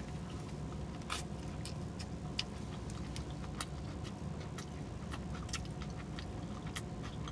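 Close-miked open-mouth chewing, with irregular wet smacking clicks several times a second over a steady low hum.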